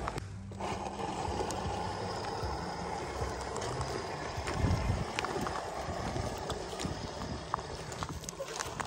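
ZP1007 RC off-road car driving over loose gravel, its electric drivetrain whirring while stones click and crunch under the tyres.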